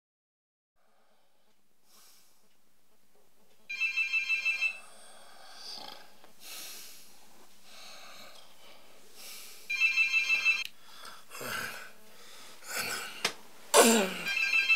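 A telephone ringing three times, about six seconds apart, each ring a fast trill of about seven pulses lasting a second. Between rings there are softer rustling sounds, and a short sound falling in pitch comes just before the last ring.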